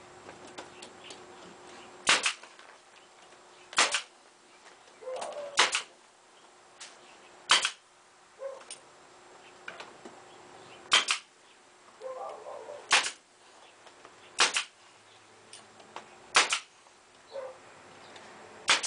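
Pneumatic nail gun firing nails into plywood wall paneling: about nine sharp shots, one every two or three seconds, with fainter knocks between them.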